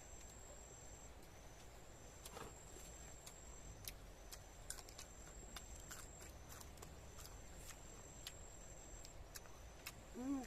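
Faint eating sounds: scattered soft clicks and smacks of chewing. A short voiced sound rises and falls near the end.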